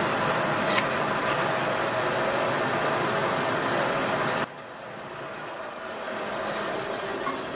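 Band saw cutting through a plastic satellite radio antenna housing, a loud steady cutting noise. About four and a half seconds in the cut ends abruptly, and the saw runs on more quietly.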